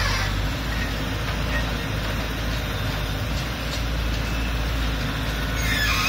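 Caterpillar 320C hydraulic excavator's diesel engine running steadily as it digs, a continuous low drone.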